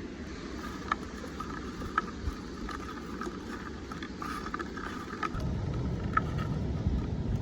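Pork cracklings frying in hot fat, crackling steadily with a few sharp pops, over a low rumble of wind on the microphone that grows louder about five seconds in.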